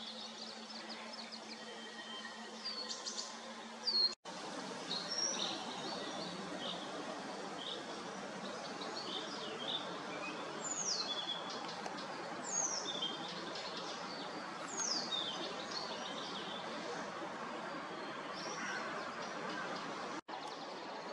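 Breeze rustling through tree leaves as a steady hiss, with several birds chirping and calling over it, including a few sharp downward-sliding calls in the middle. The sound drops out for an instant about four seconds in and again near the end.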